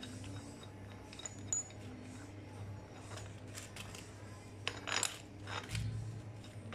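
Light metallic clicks and clinks from a bushing puller made of a small hydraulic cylinder and a U-bolt as it presses a worn bushing out of a JCB 3CX backhoe part, with a louder ringing clink about five seconds in. A steady low hum runs underneath.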